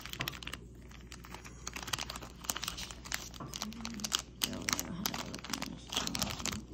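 Clear plastic bag of trading cards crinkling and crackling as it is handled and pulled open by hand, a dense run of quick, sharp crackles.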